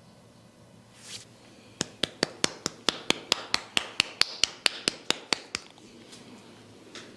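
Rapid, evenly spaced tapping of a head massage: about eighteen sharp taps at roughly five a second, starting a little under two seconds in and stopping shortly before six seconds. A short rustle comes about a second in.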